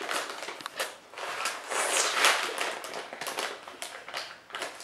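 Crinkly snack bag rustling and crackling as it is cut open with scissors, with short snips among the crinkles. It is loudest about two seconds in.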